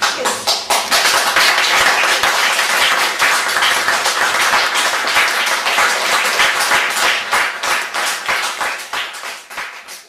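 A small audience of about forty people applauding: many hands clapping densely and steadily, tapering off near the end.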